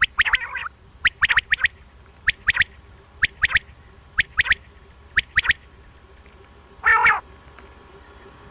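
Male common quail (batair) singing its sharp three-note 'wet-my-lips' phrase, repeated about once a second six times. About seven seconds in comes one longer, lower, buzzier call, the loudest in the stretch.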